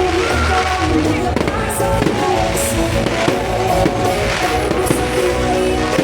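Fireworks going off in a string of irregular bangs and crackles, over loud music with a deep bass.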